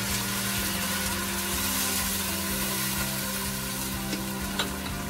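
Water hitting hot mustard oil and browned onions in a metal pot, sizzling and spattering in a steady hiss. A steady low hum runs underneath, and there is a single sharp click near the end.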